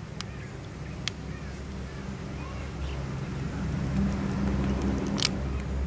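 A motor vehicle engine running nearby, a low hum that grows steadily louder over several seconds. A few sharp clicks sound over it.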